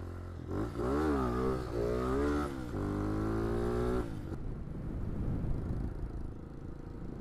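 Hawk 250 motorcycle's single-cylinder engine revved hard for a wheelie: the pitch wavers up and down, then climbs steadily. About four seconds in, the throttle closes and the engine drops back to a low rumble with wind noise.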